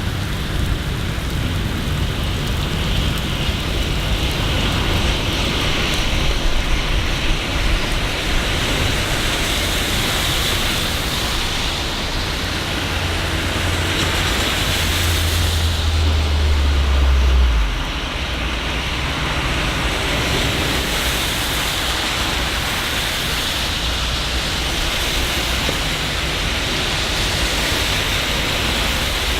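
Steady rain falling in a city, a constant hiss. Partway through, a low rumble swells for a few seconds and then cuts off suddenly.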